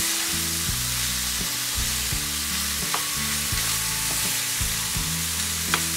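Ground pork sizzling as it fries in a nonstick pan, stirred with a spatula and spoon, with a few clicks of the utensils against the pan, the sharpest near the end.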